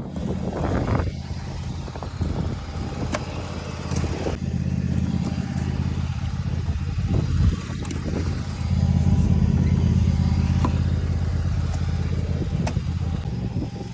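An engine running steadily, getting louder about two-thirds of the way through, with a few scattered knocks and clatter.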